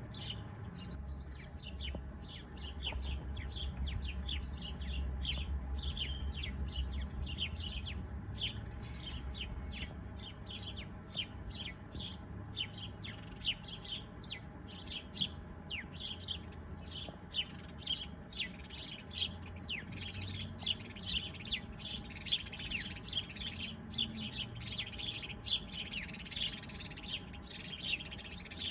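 Many small birds chirping in a busy chorus of short, quick calls, louder and sharper in the second half, over a low steady rumble.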